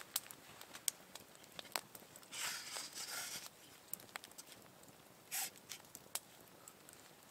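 Faint rustling with scattered light clicks: a longer rustle or scrape about two and a half seconds in, and a brief one about five seconds in.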